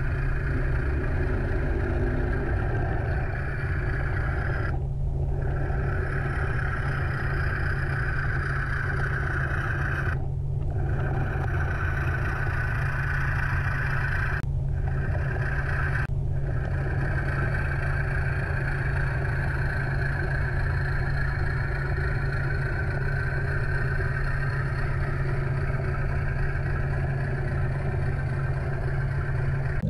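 Sound-equipped Bowser Baldwin AS616 diesel locomotive model playing a steady diesel engine drone as it moves an ore train. The upper part of the sound drops out briefly about four times in the first half.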